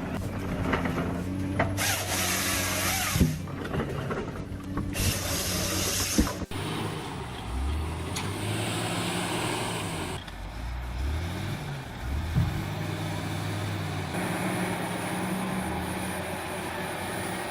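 Heavy machinery running: a large engine hums throughout, with bursts of loud noise in the first six seconds. It changes abruptly about six and a half seconds in, then goes on more steadily with a few short rises and falls in engine pitch.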